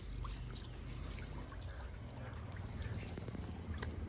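Faint trickling and small splashes of water at a pond, with scattered light ticks over a steady high-pitched whine.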